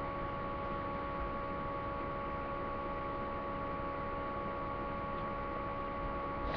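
Steady hum: a few constant tones over an even hiss that does not change.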